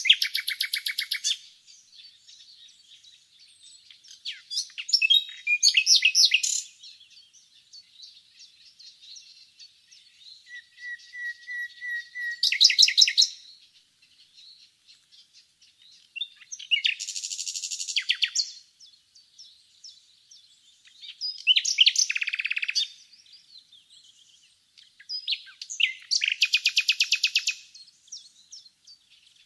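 Nightingale singing: about six loud phrases, each a rapid run of repeated notes and trills, separated by pauses of a few seconds. One phrase begins with a string of soft, even notes on one pitch before breaking into a fast, loud trill.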